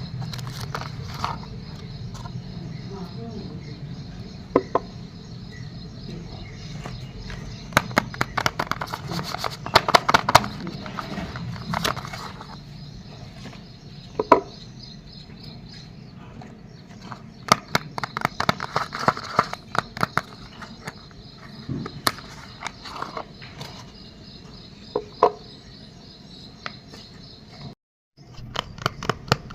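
Soap packaging being handled and unwrapped, with scattered sharp clicks, taps and crinkling, over a steady high chirping of crickets or other insects. Everything cuts out for a moment near the end.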